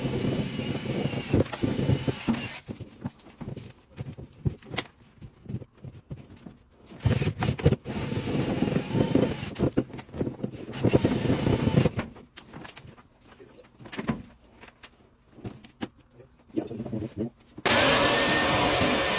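Rustling, scraping and knocking handling sounds, then near the end a vacuum motor switches on suddenly and runs steadily with a whine.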